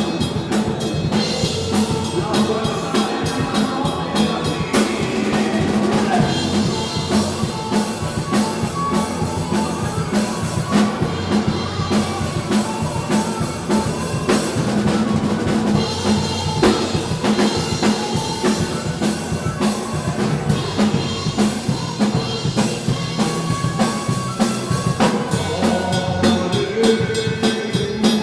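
Live rock band playing, the drum kit out in front with a steady bass drum and snare beat under the other instruments.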